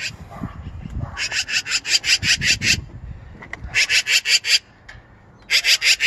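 Magpie giving its harsh, rapid rattling chatter in three bursts, the first and longest lasting nearly two seconds. This is the scolding alarm call of an agitated magpie.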